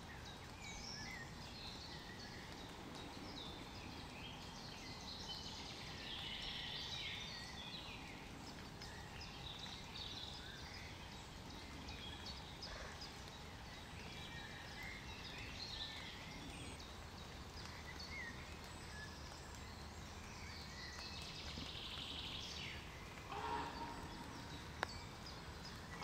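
Woodland ambience: small birds chirping and singing on and off over a steady background hiss. A brief, louder sound comes a couple of seconds before the end.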